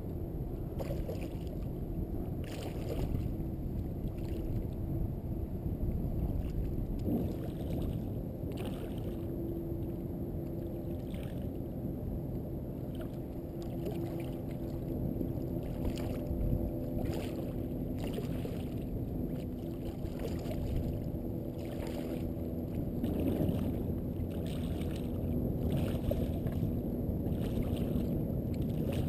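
Water splashing and lapping against a float tube as the swim fins kick, a splash about every second over a steady low rumble of water against the microphone.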